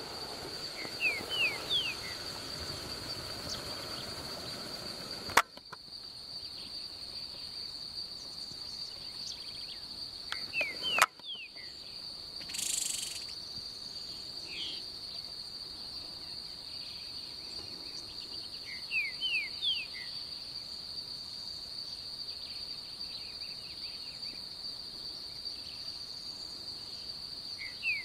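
Insects keep up a steady, high-pitched trill, while a bird sings a short phrase of three or four quick notes, repeated about every nine seconds.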